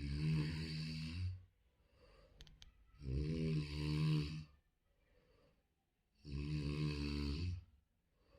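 A person snoring: three loud snores about three seconds apart, each lasting well over a second, with faint breathing between them.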